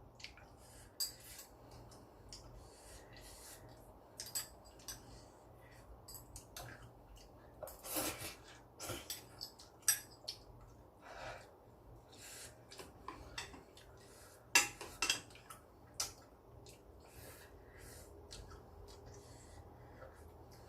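Someone eating noodles from a bowl: faint utensils clinking and scraping against the dish in scattered, irregular clicks, with a few louder short bursts of eating noise.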